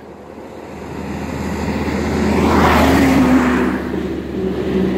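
A large truck loaded with timber passes on the road. Its engine and tyre noise builds to a peak about three seconds in, then eases off slightly as the truck moves away.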